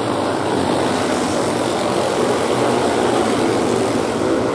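Engines of several classic racing motorcycles running hard as the bikes pass along the track, blending into one steady, loud engine noise.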